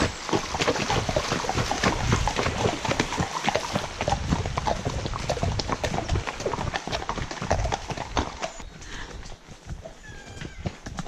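Hooves of a group of walking horses splashing through a shallow ford and clopping onto a wet lane, with many irregular knocks. Near the end the hoof falls become quieter and sparser on a soft woodland path.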